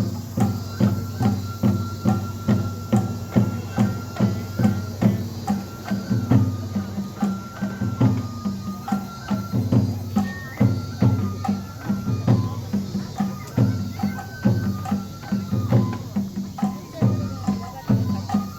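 Japanese festival music for a lion dance: drums beating a steady rhythm of about three strokes a second under a high flute melody that moves in held steps.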